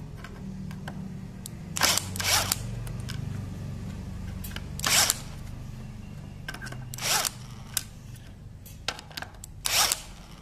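Tekiro 20 V brushless cordless impact driver running in reverse, backing screws out of hardwood one after another. Its motor gives a low, steady drone, broken by about five short, loud bursts.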